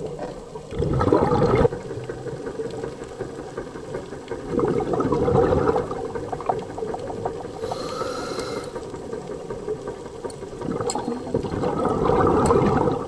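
Scuba diver breathing through a regulator underwater: three gurgling bursts of exhaled bubbles, about four to five seconds apart, over a steady underwater hiss.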